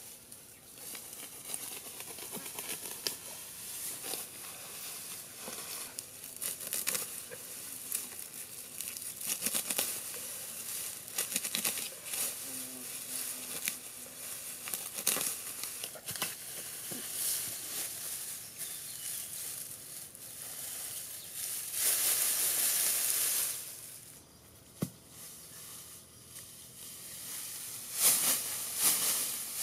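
Tall grass being cut at the base with a knife and pulled up by hand: irregular crackling, tearing and rustling of the stalks, with a longer stretch of steady rustling about three-quarters of the way through.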